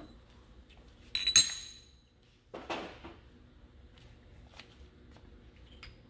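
Steel vise jaw plates taken off a Kurt machining vise and set down on metal: a loud ringing metallic clank about a second in, then a duller clatter a moment later, with a few faint clicks.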